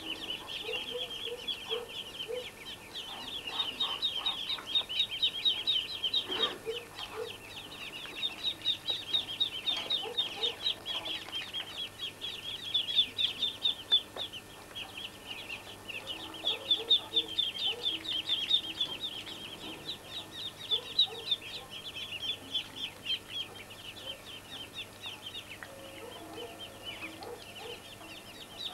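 Muscovy ducklings peeping, many rapid high peeps in bouts with short breaks. Short low clucking notes from an adult bird come in small groups now and then.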